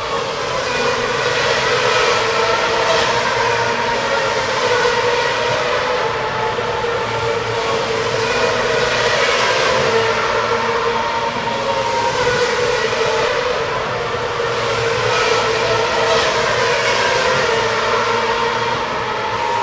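Racing car engines running at high revs without a break, several engine notes overlapping and drifting slowly up and down in pitch.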